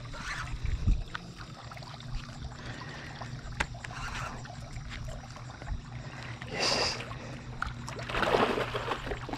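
A hooked catfish splashing and thrashing at the water surface while it is played on a lure rod, with two louder splashes, about two-thirds of the way in and near the end.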